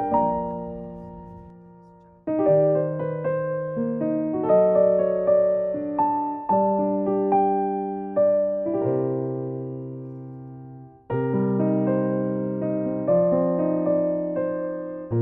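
Background piano music: slow, gentle chords and melody notes that ring out and fade, with two brief lulls where the sound dies away before the playing resumes.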